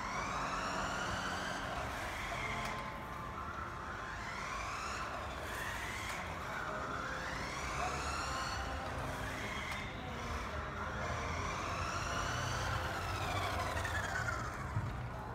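A siren wailing in slow sweeps, rising and falling in pitch every two to three seconds, over a steady low hum.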